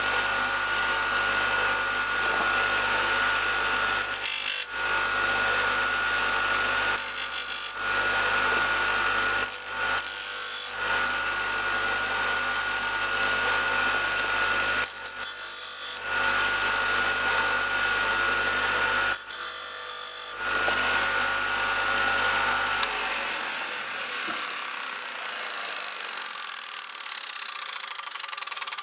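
Rexon BD150A disc sander running steadily, with a few short spells of grinding as a small metal part is pressed against the disc. About three-quarters of the way through it is switched off, and the motor whine falls as the disc coasts down.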